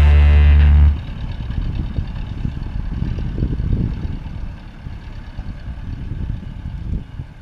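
A held musical chord that cuts off about a second in, followed by an uneven low rumbling noise.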